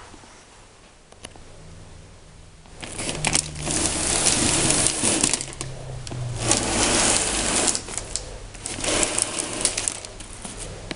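Airbrush spraying paint in several long hissing passes with short breaks, over the steady hum of its air compressor, which comes on about a second in.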